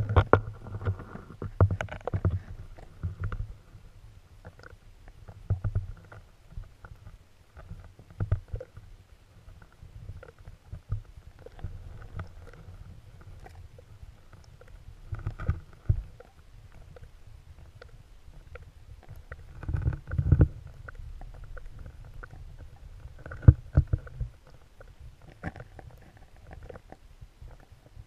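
Muffled underwater sound beneath lake ice, picked up through a camera housing: a low rumble with irregular thuds and knocks, a few sharp clicks, and stronger bumps about two, fifteen, twenty and twenty-three seconds in.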